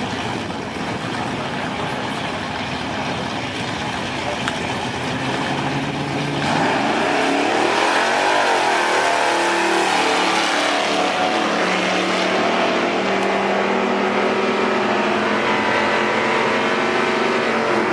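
Vintage drag-race cars, a gasser among them, running rough and loud on the start line, then launching at full throttle about six and a half seconds in: the engine note climbs, dips once at a shift, and holds steady as they pull away down the drag strip.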